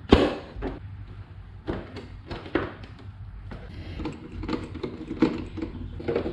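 Plastic body panel of a Can-Am Spyder being pressed and snapped into place, with one sharp snap just after the start, then scattered light clicks and knocks of plastic and a small metal T-handle Torx driver as a cover bolt is started.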